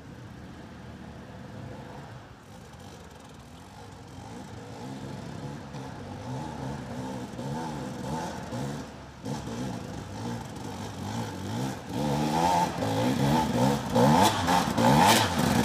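KTM dirt bike engine approaching and growing steadily louder, its pitch rising and falling again and again as the rider works the throttle.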